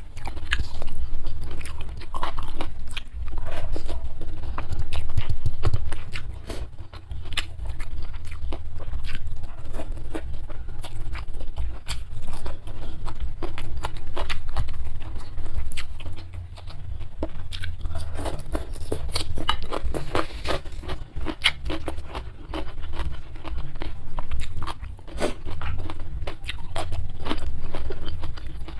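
Close-miked eating: a person chewing and biting food, with many irregular crisp crunches and small mouth clicks.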